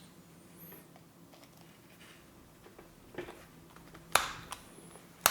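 A few small clicks and taps of a twist-lock electric plug's housing and parts being handled as it is put together, with two sharp clicks about four and five seconds in that are the loudest.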